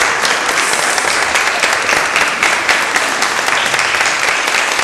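An audience applauding steadily: many hands clapping together in a dense, even patter.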